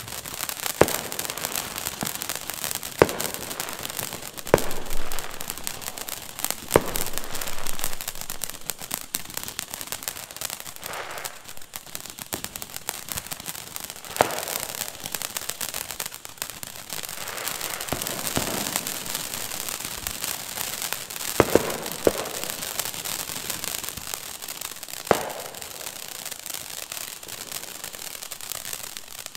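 Ground fountain firework spraying sparks: a continuous crackling hiss, with a sharp pop every few seconds.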